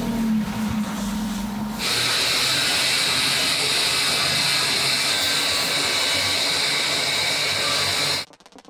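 Flatbed tow truck machinery running while a car is unloaded: a steady low hum for the first two seconds, then a steady hiss that cuts off sharply near the end.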